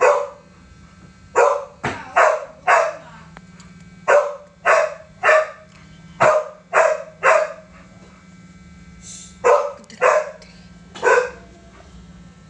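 A dog barking: short, sharp barks in bursts of three or four, with pauses of a second or two between the bursts.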